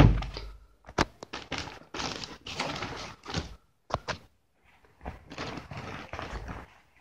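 A thud at the very start, then hands handling a black jiu-jitsu gi and its plastic and paper wrapping: the heavy cotton cloth and packaging rustle in two stretches, with a few sharp clicks about one second and four seconds in.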